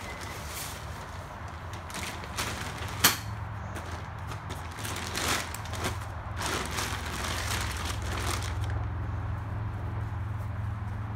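Plastic tarp rustling and crinkling in irregular bursts as it is pulled and handled, with one sharp click about three seconds in, over a steady low hum.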